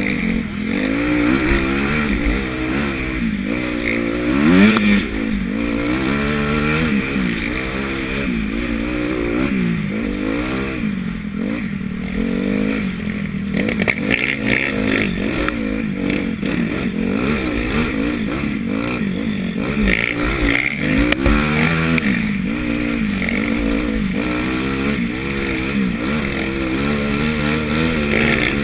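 Honda CRF250 motocross bike's single-cylinder four-stroke engine being ridden hard, its pitch rising and falling over and over as the throttle is opened and shut through a lap, heard from a helmet-mounted camera.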